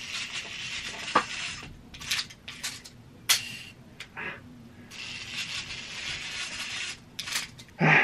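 Retractable toy web-shooter being worked by gloved hands: rasping and rubbing as its line is pulled and reeled, broken by several sharp clicks, with a louder knock at the very end.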